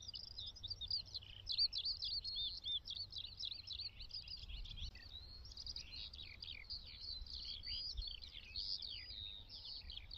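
Many small birds chirping and twittering, with short, high notes overlapping thickly and never pausing.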